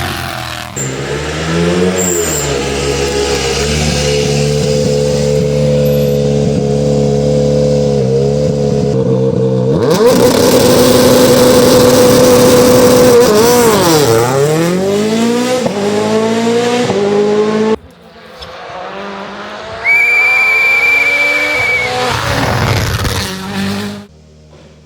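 Rally cars' turbocharged four-cylinder engines at high revs, in several short cuts. The revs are held steady for several seconds, then a car passes, its engine pitch sweeping down and up through gear changes.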